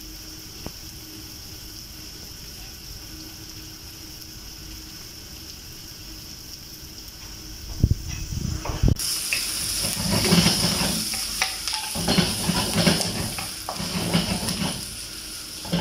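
Onions and garlic sizzling gently in oil in a frying pan. A couple of knocks about eight seconds in as meat goes into the pan, after which the sizzling turns much louder, with a wooden spatula stirring and scraping through it.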